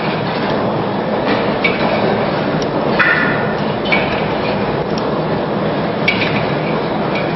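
Cable crossover machine clinking about once a second as the weight-stack plates and cables move with each rep, over a steady, loud background noise.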